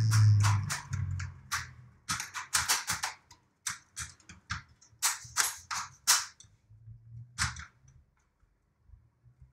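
Quick, irregular series of sharp plastic clicks and knocks from a Dell Inspiron N5040 laptop's plastic casing being handled and pressed together, thinning out near the end. A low hum runs under the first second or so.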